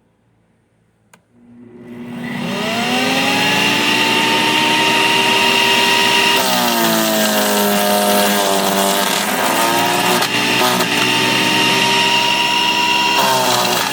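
Sun Joe CJ602E 15-amp electric wood chipper switched on with a click and its motor spinning up with a rising whine, then running steadily. Its pitch sags for a few seconds around the middle and briefly near the end as it bogs down chipping branches fed into it.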